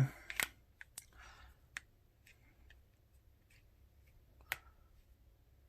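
Faint, scattered small plastic clicks and taps as a battery is fitted into a Samsung Gusto flip phone's battery compartment, the loudest click about four and a half seconds in.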